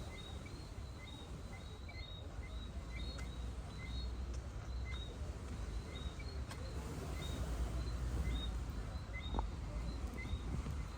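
Beach ambience at dusk: a steady low rumble of sea and wind, with short high chirps repeating about once or twice a second.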